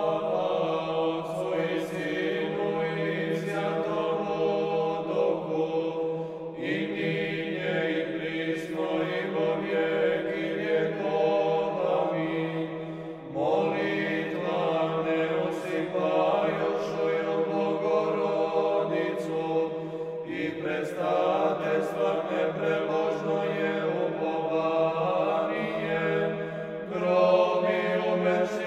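Church chant: voices singing a slow hymn over a steady held drone note, in the manner of Orthodox chant, in long phrases that break off and begin again roughly every seven seconds.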